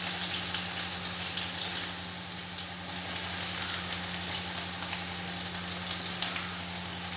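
Bread-crumb-coated potato fingers sizzling steadily as they fry in hot oil in a shallow pan, with more pieces being added, and a single short click about six seconds in.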